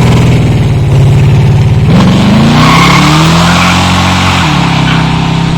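1974 pro street Camaro's engine under hard acceleration, loud. Its note breaks sharply about two seconds in, like a gear change, then climbs and settles.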